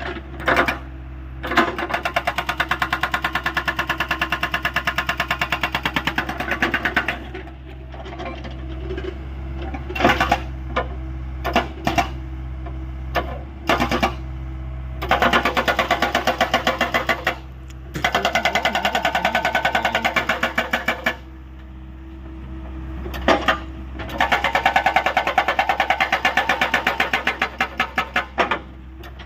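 Hydraulic rock breaker on a Hyundai 85A excavator hammering in four bursts of several seconds each, delivering rapid, evenly spaced blows, with a few single knocks between bursts. The excavator's engine hums steadily underneath.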